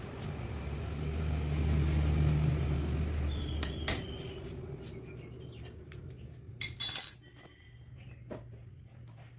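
Yamaha R15 V3 single-cylinder engine running, rising in level over the first couple of seconds and then settling back to a steady idle, with an abnormal noise that the mechanic suspects comes from something broken inside the engine. A few short, sharp high-pitched sounds stand out, the loudest about two-thirds of the way through.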